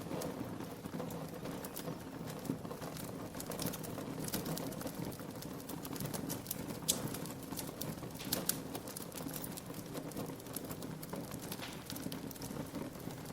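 Log fire crackling, with irregular sharp pops over a steady low background; the loudest pop comes about seven seconds in.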